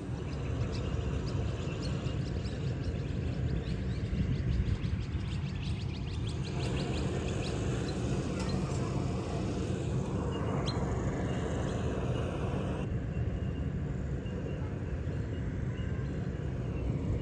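Outdoor rural ambience: a steady low rumble, with faint rapid high chirps in the first half. The background changes abruptly twice.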